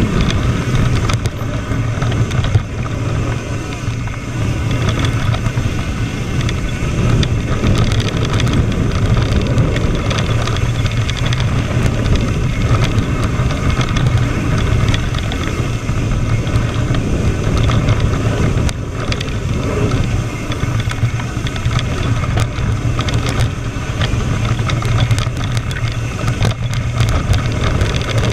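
Steady rush of wind over an action camera's microphone mixed with tyres rumbling on a loose dirt trail during a fast mountain-bike descent, with scattered clicks and rattles from the bike.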